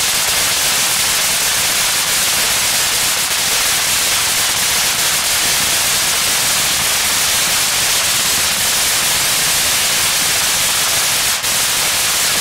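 Headless Horseman firework fountain burning, a loud, steady hiss of spraying sparks with a few faint crackles, one sharper pop about eleven seconds in.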